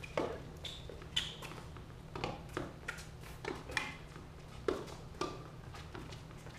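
Tennis balls being struck by rackets and bouncing on a hard court during a doubles rally: a string of sharp, irregular knocks about every half second.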